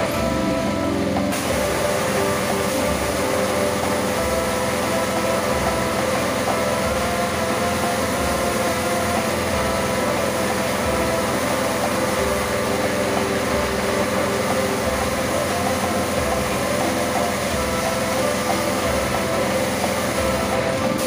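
Pressure washer running, its motor and pump humming steadily with a low pulsing about once a second, while the high-pressure jet hisses against a wet motor scooter; the hiss of the spray comes in about a second in.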